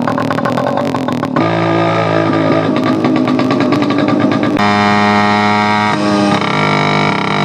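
TVS 50 moped's small two-stroke engine running loud with the silencer cap removed, its open exhaust popping in quick uneven pulses for the first second and a half, then settling into a steadier, higher-pitched drone that shifts in pitch a few times.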